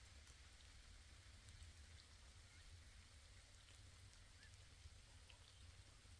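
Faint, steady rain, with scattered single drops ticking and a low rumble underneath.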